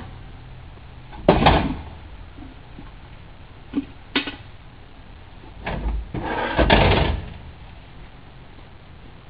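Metal fittings of an equine dental trailer and its horse stock being handled: a loud clunk about a second in, two short knocks around four seconds, and a longer clatter a couple of seconds later.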